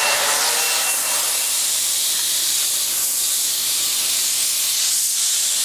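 Steady, loud hiss of rushing air that holds even throughout, with no breaks or changes.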